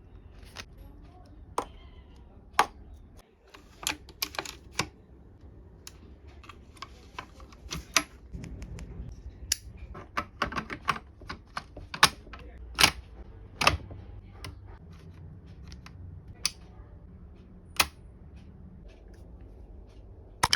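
Sharp mechanical clicks and knocks from a KJW M700 gas airsoft sniper rifle being handled and worked, irregularly spaced, with a few quick clusters of three or four clicks.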